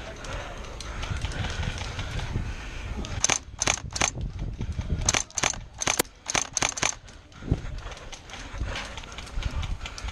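Airsoft gun firing in a quick string of sharp snaps between about three and seven seconds in, over the low thud of running footsteps and gear shaking against the microphone.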